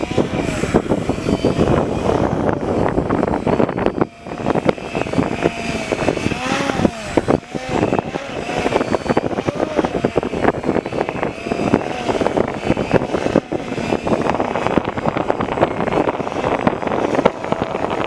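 Wind buffeting the microphone, with the whine of an Extreme Flight MXS EXP model plane's Hacker A30-14L brushless electric motor and 12x6 propeller under it, rising and falling in pitch with the throttle, most plainly in the middle.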